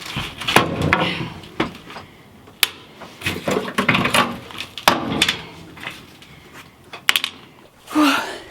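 Hammer prying screws out of a van's floor: irregular sharp knocks and clicks with scraping and creaking in between.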